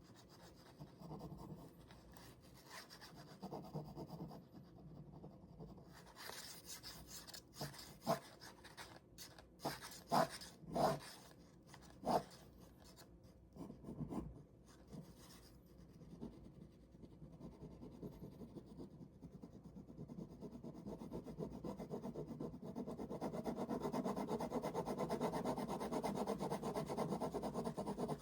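Ballpoint pen scratching across paper in drawing strokes, with a few sharper taps in the first half; in the last third it turns into fast, even back-and-forth shading that grows louder.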